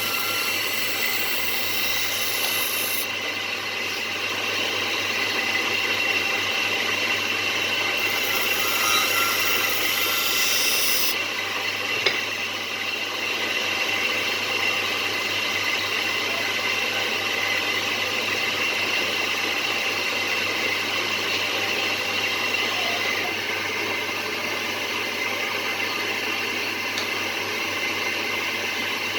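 Electric grinder running steadily, with a steel scissor blade held against the wheel twice for a few seconds each time, giving a high hiss at the start and again about eight seconds in.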